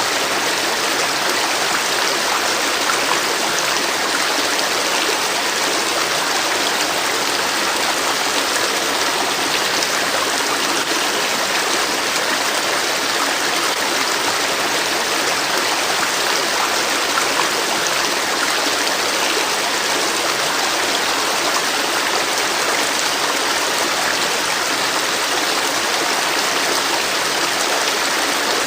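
River water flowing, a steady, even rush that never lets up.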